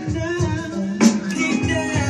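Music with a steady beat and a singing voice.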